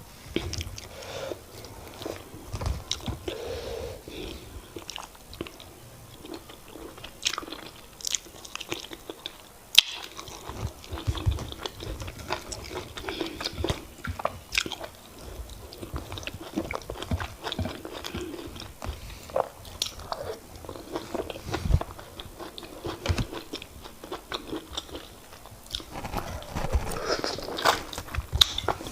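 Close-miked eating of semolina fufu and oha soup: chewing and mouth sounds with many quick sharp clicks, going on steadily.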